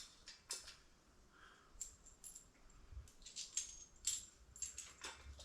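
Faint, scattered clicks and clinks of small metal hardware, such as bolts, nuts and washers, being handled during assembly of a transmission jack.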